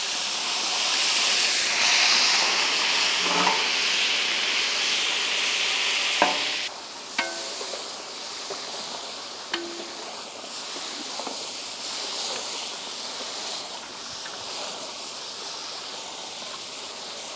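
Yogurt-marinated mutton sizzling as it hits hot oil in the cooking pot, a loud steady hiss that drops suddenly about seven seconds in to a quieter sizzle. A few sharp clinks are heard.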